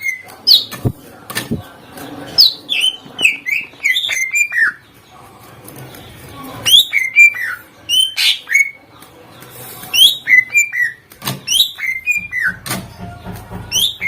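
Cucak ijo (green leafbird) singing loudly in the full, mimic-laden 'gacor' style used as a lure song: quick phrases of sharp whistled notes that sweep up and down in pitch, mixed with clicking notes, with a short lull before the middle.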